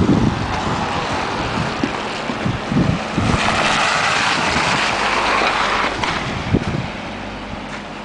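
Wind buffeting the microphone with irregular low thumps, over street traffic noise: a hiss of tyres on wet, slushy pavement that swells about three seconds in and cuts off sharply a few seconds later.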